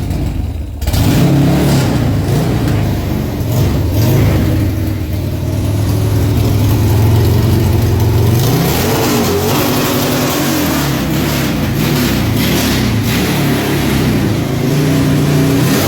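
Buell motorcycle engine in a home-built crosskart running loudly, just brought to life. It is held at a steady raised speed for several seconds, then revved up and down in short blips near the end.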